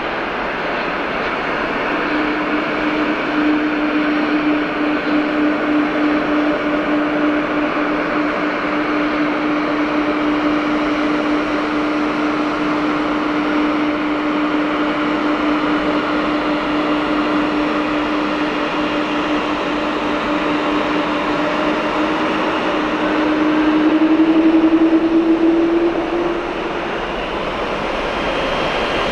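Boeing 777-300 airliner's jet engines running at low power as it taxis, a steady whine over a broad rush. The whine rises slightly and grows louder a little past two-thirds of the way through, then drops back.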